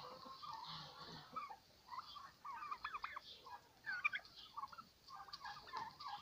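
A flock of young domestic turkeys calling: many short, high-pitched chirping peeps from several birds at once, in loose clusters, with a brief lull about a second and a half in.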